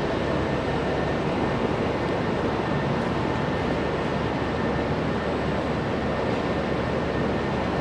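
Steady, even noise of running machinery in a workshop, with no distinct events.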